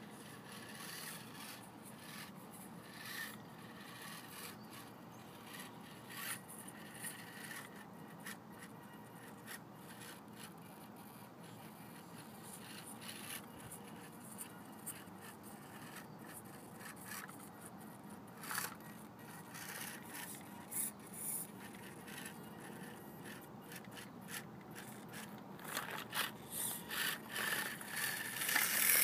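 Losi 1/24-scale micro rock crawler RC truck crawling over granite boulders: faint, uneven rubbing and scraping of its tyres and chassis on the rock, with short clicks and scuffs. The scrapes grow louder and more frequent near the end.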